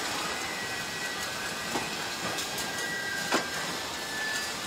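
Car assembly-line machinery running: a steady factory hum with a faint high machine whine, and two sharp metal clanks, a light one about two seconds in and a louder one about a second later.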